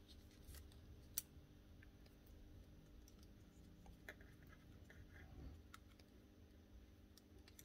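Near silence: faint scattered clicks and taps of wires and plastic housing parts being handled during reassembly, with one sharper click about a second in, over a low steady hum.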